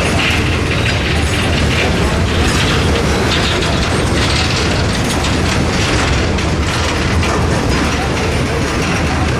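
Norfolk Southern freight train cars (steel gondolas and enclosed autoracks) rolling past: a steady, loud rumble of steel wheels on the rails with continual metallic knocking and clatter from the cars.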